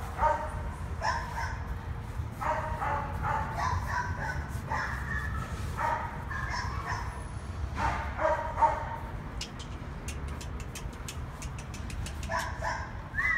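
Dogs barking in quick runs of short barks, over a steady low rumble.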